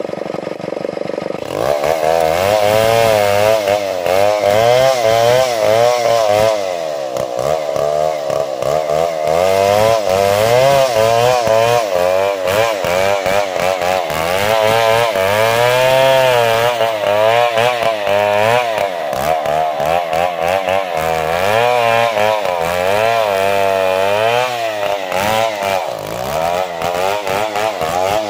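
STIHL chainsaw ripping lengthwise through a damar log, the engine running hard under load with its pitch wavering up and down as the chain bites. It picks up to full cutting speed about a second and a half in.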